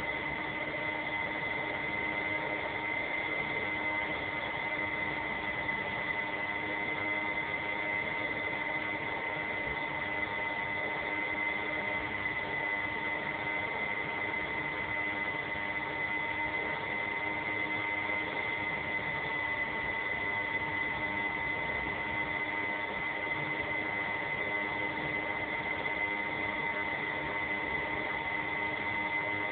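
Steady electrical hum and hiss with a few fixed high tones, unchanging throughout.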